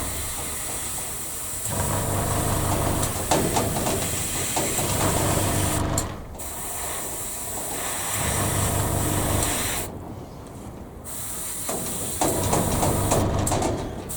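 Airbrush spraying paint at about 12 psi: a hiss of air that stops and starts as the trigger is worked, with a gap about six seconds in and a longer one about ten seconds in, over the hum of the small air compressor that feeds it.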